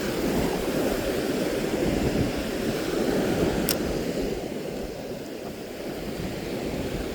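Ocean surf washing onto a sandy beach, a steady rushing noise, with wind on the microphone. A single brief high tick about halfway through.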